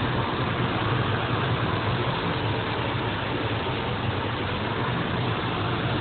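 Steady engine and road noise inside a moving car, an even rushing sound with a low hum underneath.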